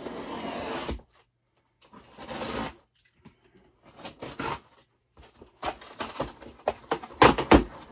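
A large cardboard shipping box being cut open: the packing tape slit and torn in several separate tearing strokes, then the flaps pulled apart with cardboard scraping and packing peanuts rustling, loudest near the end.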